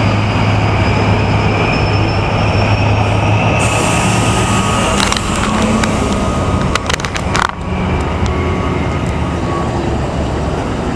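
Loud, steady rumble of heavy street traffic or a train, with a faint high whine rising slowly over the first few seconds. From about halfway through come sharp clicks and rubbing as the camera is handled and lowered.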